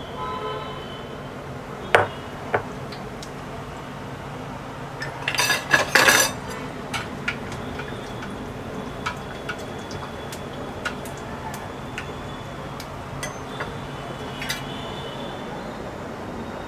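Battered stuffed chillies frying in hot oil in a steel kadai: light sizzling and popping over a steady low hum, with a slotted steel spoon clinking against the pan, twice about two seconds in and in a louder clatter around five to six seconds in.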